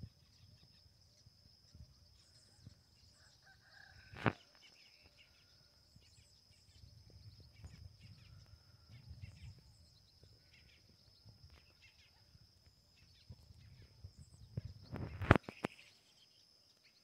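Faint countryside ambience: a steady high insect drone with a distant rooster crowing and birds chirping. A sharp knock about four seconds in and a quick cluster of knocks near the end are the loudest sounds.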